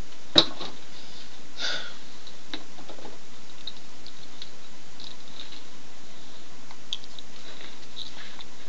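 Steady hiss with one sharp click about half a second in, a short rustle a little later, and a few faint scattered clicks, like small objects being handled.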